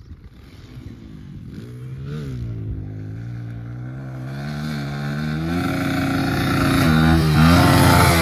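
Kawasaki 140 dirt bike engine revving up and down as it is ridden fast through a set of rollers, the pitch rising and falling over each bump and growing steadily louder as the bike approaches.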